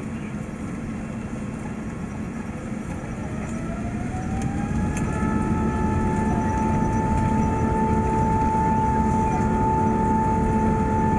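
Airbus A380 engines spooling up, heard inside the cabin: a whine rises in pitch over a couple of seconds and then holds steady as the engine rumble grows louder, about four to six seconds in.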